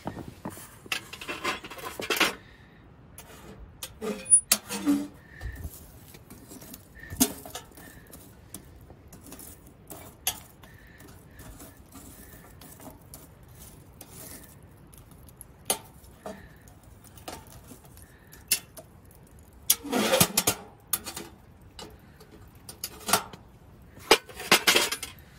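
Metal clanks and clinks from tending a small steel tent wood stove: its door and a metal poker and tongs knock against the stove and a steel tray. The clanks come in short bunches, about a second in, around four to five seconds, and loudest twice near the end.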